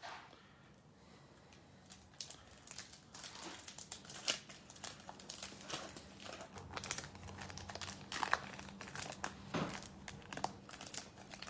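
Foil wrapper of an NBA Hoops trading card pack crinkling as it is torn and pulled open by hand, starting about two seconds in with many sharp, irregular crackles.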